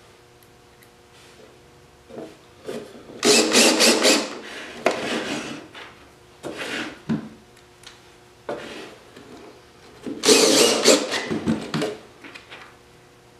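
Cordless drill driving screws through a metal license plate into a wooden birdhouse, in several short bursts, the longest lasting about a second.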